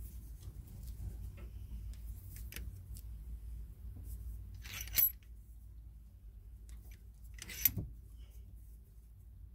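Brake caliper piston rewind tool being turned to wind a rotating caliper piston back, giving two sharp metallic clinks about five and nearly eight seconds in over a low steady rumble.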